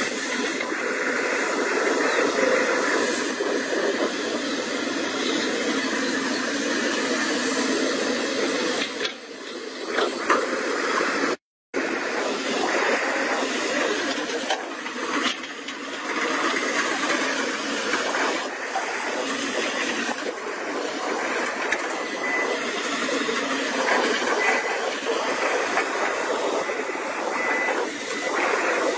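Cat 320CL hydraulic excavator's diesel engine and hydraulics running under load as the machine tracks through deep mud, a steady noisy drone. The sound drops out for a moment about eleven seconds in.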